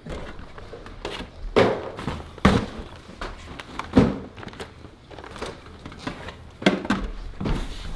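Boxed merchandise being handled: a few separate knocks and thumps as boxes are picked up and set down, the loudest about four seconds in, with light rustling of packaging between them.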